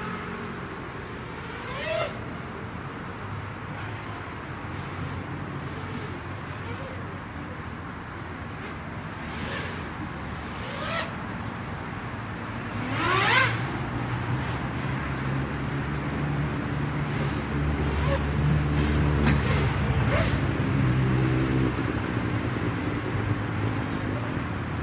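A low engine hum with several steady harmonics that grows louder over the second half, over a steady outdoor noise bed. A few short rising whines cut in, the loudest just past the middle.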